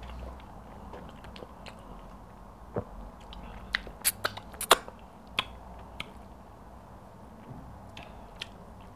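Close-miked mouth sounds of someone eating pounded yam and egusi soup by hand: chewing with wet lip smacks and clicks. The loudest smacks come in a cluster around four to five seconds in, while soup is sucked off the fingers.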